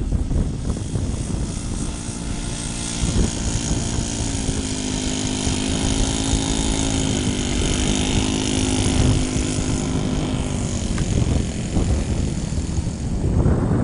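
Radio-controlled Cessna 182 model's O.S. 95 four-stroke glow engine and propeller running steadily on a fast taxi. The engine note grows loudest through the middle as the plane passes, then fades.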